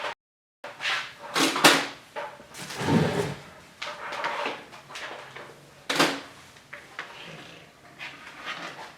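Irregular knocks, clicks and rustling handling noises, with a sharp knock about six seconds in, after a brief moment of dead silence right at the start.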